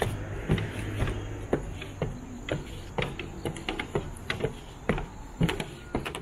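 Footsteps at an even walking pace, about two steps a second, with a low hum that fades out after the first couple of seconds.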